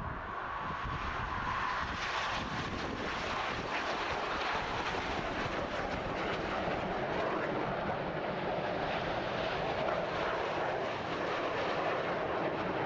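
Jet aircraft engine noise, a steady roar that holds without break.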